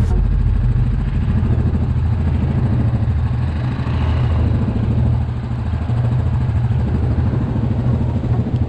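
ATV engine running steadily, a deep low drone that dips briefly in level about five seconds in.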